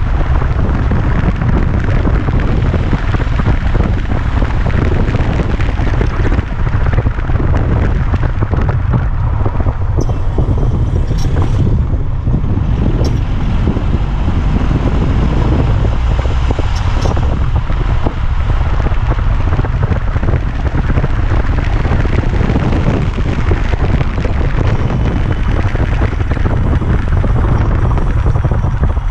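Fiat 500L's 1.4-litre petrol engine running, with a loud, steady low rumble that does not let up.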